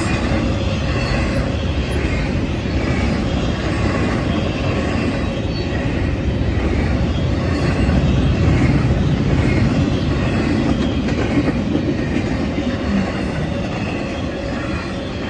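Norfolk Southern intermodal freight train's double-stack container cars and trailer flatcars rolling past, a steady rumble of wheels on rail that swells a little about halfway through and eases slightly near the end.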